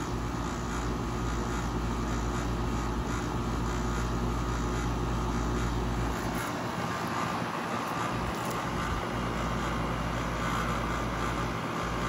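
Outdoor condenser unit of a 2014 Carrier 2-ton central air conditioner running in cooling mode: a steady fan and compressor hum.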